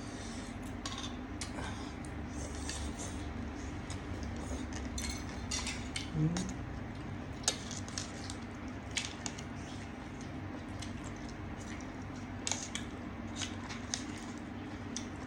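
Cutlery clinking and scraping against a plate or bowl during eating, in scattered short clicks over a steady low hum.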